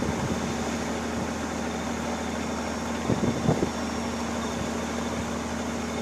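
Engine on a fishing boat running steadily with a constant hum, with a few brief knocks about three seconds in.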